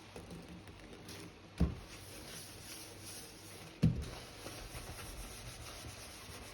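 Sponge scrubbing baking soda around a sink, a soft gritty rubbing, broken by two dull thumps about one and a half seconds and about four seconds in, the second the louder.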